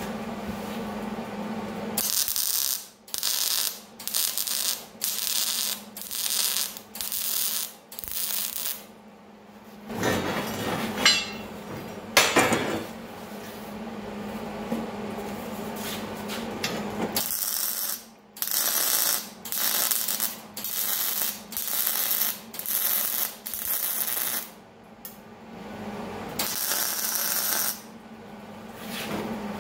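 MIG welder laying a series of short stitch welds on a small steel frame: two runs of about half a dozen one-second arc bursts with brief pauses between, and a longer weld near the end. In the middle the steel is handled with a couple of sharp metal clanks, and a steady low hum runs underneath.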